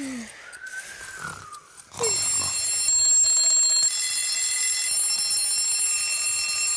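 Soft sleepy snoring with a falling-and-rising whistle, then about two seconds in several cartoon alarm clocks burst into loud, continuous ringing together.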